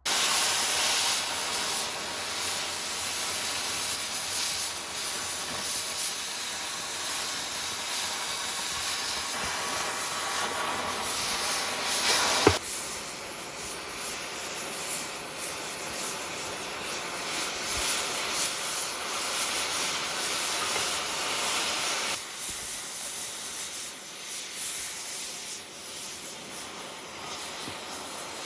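Oxy-fuel cutting torch hissing steadily as it burns through the steel of a railroad rail, with one sharp crack about halfway through. The hiss eases a little about three-quarters of the way in.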